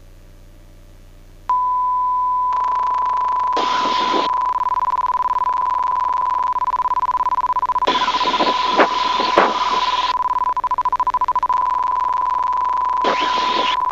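A steady, high electronic tone, one held beep, comes on about a second and a half in and does not stop, heard over the aircraft's headset intercom audio. Short bursts of hissy crackle come through it around four seconds in, again for a couple of seconds in the middle, and near the end.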